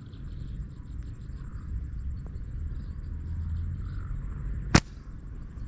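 Wind rumbling on the microphone, then a single sharp crack of a slingshot shot nearly five seconds in.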